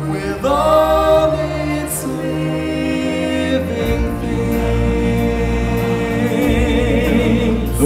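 Stage-show music: a choir of singers holding long notes over a sustained bass accompaniment, the chord changing about four seconds in.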